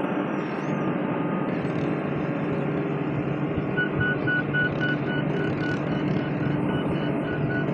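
Excavator's diesel engine running steadily. From about four seconds in, a fast, evenly repeating electronic beep sounds over it.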